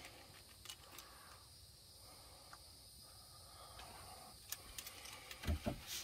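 Faint outdoor ambience: a steady high hiss, with a few faint clicks and two soft low thumps near the end.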